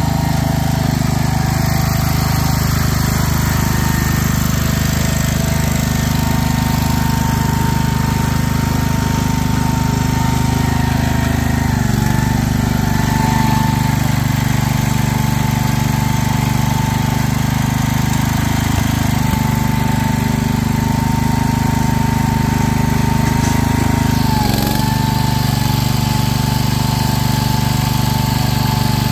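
Garden tractor engine running steadily under load as the tractor drives through a mud hole, its note dipping briefly twice, about twelve seconds in and again near the end.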